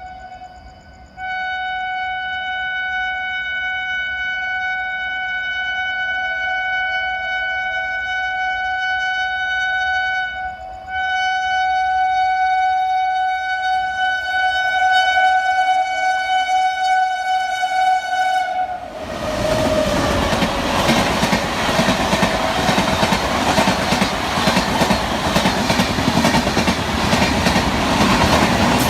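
Indian Railways WAP-7 electric locomotive sounding one long, steady horn blast with a short break partway, then the express train passes at high speed, its wheels and coaches rushing loudly over the track for the last ten seconds.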